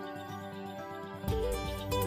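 Gentle instrumental background music with soft held notes, turning louder and fuller with a stronger bass line about a second in.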